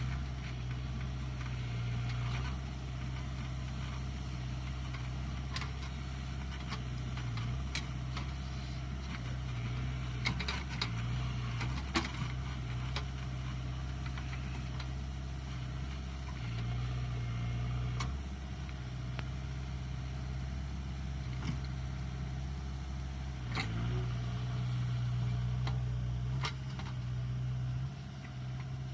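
JCB 3DX backhoe loader's diesel engine running steadily as the machine works, its low hum growing louder and softer in stretches. Occasional short sharp knocks sound over it.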